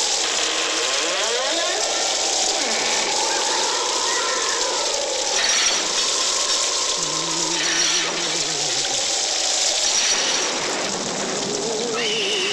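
Eerie electronic soundtrack: tones that slide up and down, then waver in pitch around the middle and near the end, over a steady hiss.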